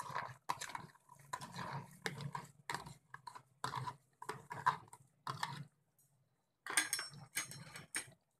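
A spoon scraping and tapping a plastic box as soaked, peeled val beans are tipped into a steel pressure cooker: a run of quick, irregular clicks and scrapes, with a brief pause about six seconds in before a few more.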